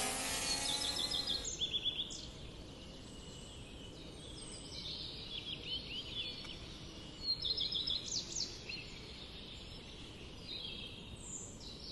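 Small birds chirping and singing in short repeated phrases, several clusters of calls over a faint steady background hiss.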